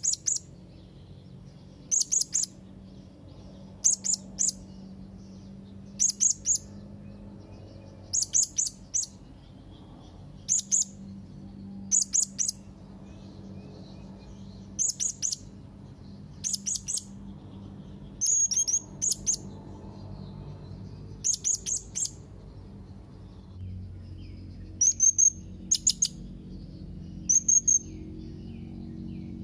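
Young blue-crowned hanging parrot calling to a rival: shrill, very high, thin notes in quick clusters of two to four, repeated about every two seconds.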